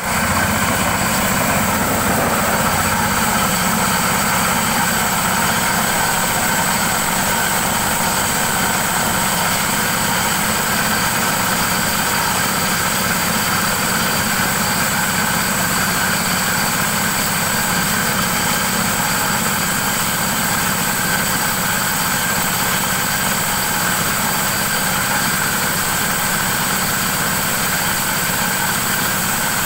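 Forage chopper (chaff cutter) running steadily while it chops green fodder: a continuous machine drone with a steady high whine over it.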